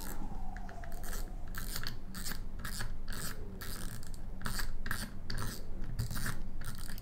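Drag knob of a spinning fishing reel being unscrewed by hand, its clicker ratcheting in short, irregular runs of clicks.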